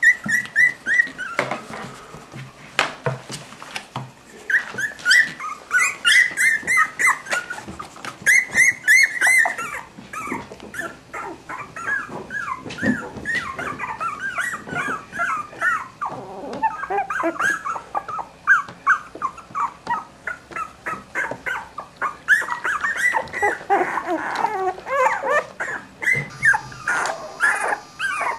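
A litter of young Cavalier King Charles Spaniel puppies whimpering and squeaking: many short, high calls in quick runs, overlapping as several pups cry at once.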